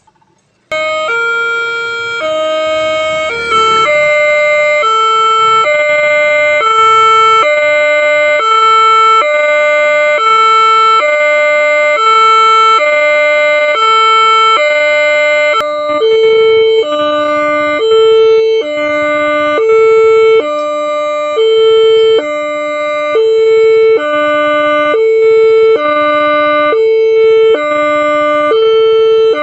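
Railway level-crossing warning alarm: an electronic two-tone signal alternating between a higher and a lower tone, each held about half a second, sounding as a train approaches. It starts abruptly about a second in and gets louder after about four seconds.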